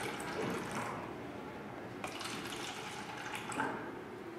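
Carbonated soda poured from an aluminium can into disposable cups, a splashing liquid pour that eases about a second in and picks up again at about two seconds.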